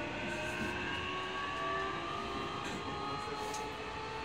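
Electric train's traction motors and inverter whining in several thin tones that glide slowly in pitch, over a steady rumble.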